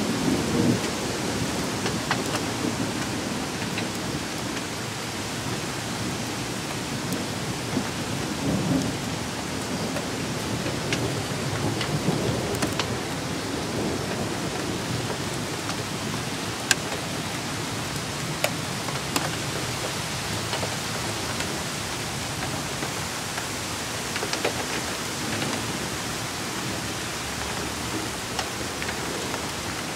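Steady heavy rain on pavement, with low rumbles of thunder swelling up a few times: at the start, about eight seconds in, and again around twelve seconds. Sharp ticks of single drops land close by now and then.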